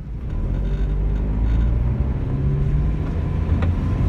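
Car engine running and road noise while driving, heard from inside the cabin, with a low, steady hum whose pitch shifts slightly.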